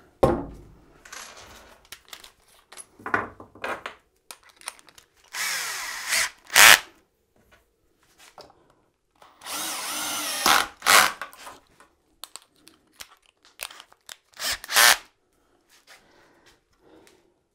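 Cordless drill running in several short bursts of a second or two into the wooden top of a sawhorse, sinking screws deep below the surface. Short knocks and clatter of the tool and wood come between the bursts.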